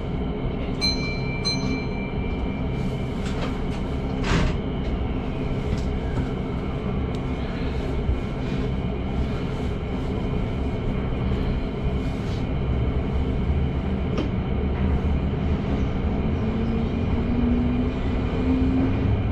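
Keihan electric train running underground with a steady rumble, a brief electronic beep about a second in and a few clicks. Near the end the traction motor's whine rises in pitch as the train gathers speed.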